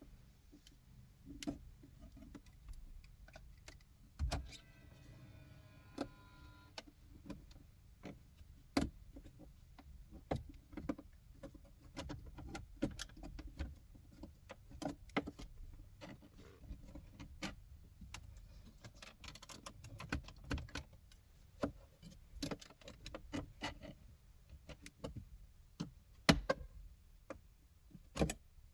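Plastic centre-console trim on a 2016 Cadillac CTS Vsport being pried and worked loose by hand: scattered clicks, knocks and light rattling of the panels and clips. About five seconds in there is a short pitched tone lasting a couple of seconds.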